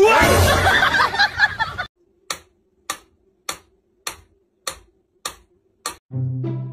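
A loud, harsh burst of sound with shifting pitches for the first two seconds. Then a mechanical pendulum metronome ticks seven times, evenly, a little under two ticks a second.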